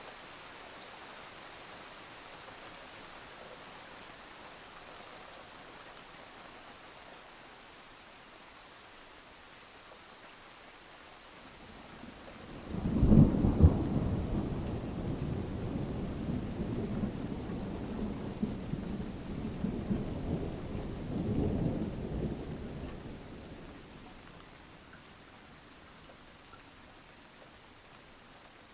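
Steady rain with a clap of thunder about halfway through: a sudden crack that rolls into a low rumble, swells again and fades away over roughly ten seconds.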